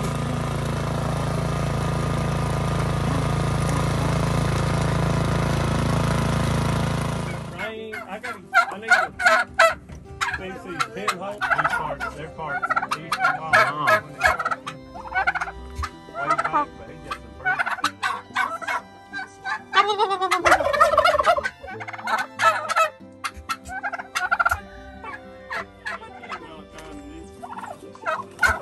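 An engine running steadily for about the first seven seconds, then stopping abruptly. Turkeys then gobble again and again.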